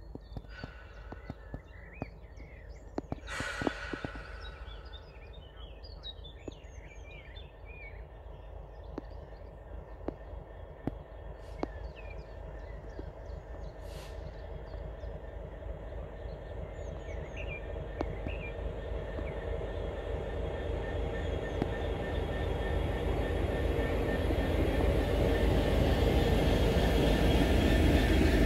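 Class 66 diesel-electric locomotive with a two-stroke V12 diesel engine approaching on the rails. Its engine and wheel noise grow steadily louder until it is close at the end. Birds chirp in the first half.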